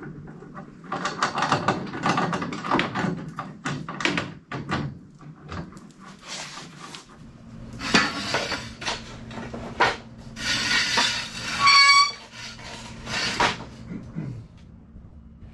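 Irregular metal clanks, knocks and scrapes of steel jack stands, chain and wooden blocks being set up under a sailboat hull, with a short metallic squeal near the end.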